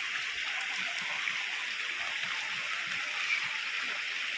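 Steady hiss of rain falling on the surface of a shallow river.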